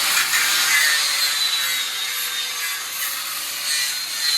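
Angle grinder running and grinding steadily, with a hissing grind over a constant motor whine.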